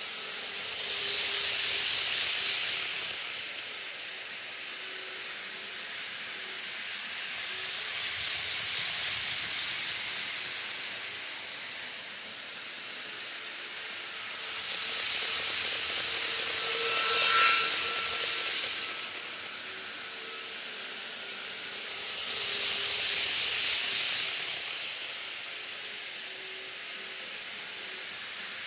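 Model Shinkansen trains running on a model railway track: a steady hiss of wheels and motors that swells loudly four times as trains pass close, with a brief ringing squeal about two-thirds of the way through.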